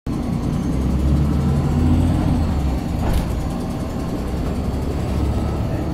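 Scania N94UD double-decker bus engine running, heard from inside on the upper deck as a steady low drone that eases off briefly about halfway through. A single knock or rattle sounds about three seconds in.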